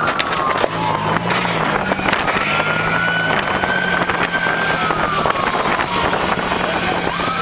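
Police siren wailing, rising and falling slowly in pitch, over a steady rush of wind and road noise and a low engine hum, heard from beside a car moving at speed.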